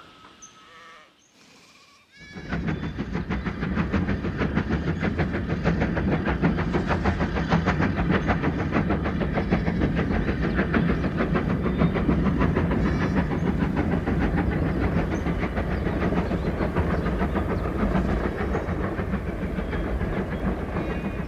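Train sound effect: a train running with a rapid, regular beat of strokes. It starts about two seconds in and holds steady, with a few brief higher-pitched calls over it.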